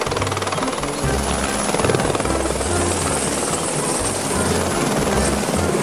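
Airbus AS350 Écureuil (H125) helicopter hovering, its rotor chopping steadily in a fast, even beat.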